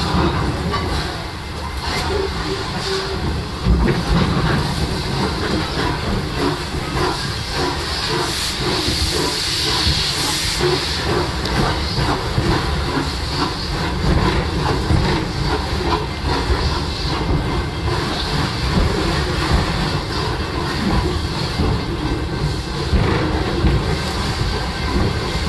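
Steam locomotive No. 3 Torch Lake venting steam with a loud hiss, strongest about eight to eleven seconds in. Under it runs the steady rumble and clatter of the open passenger car on the rails.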